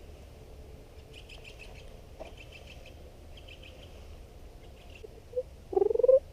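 Birds chirping in quick, rapid runs of high notes, then near the end a much louder short call that rises in pitch, over a steady low background rumble.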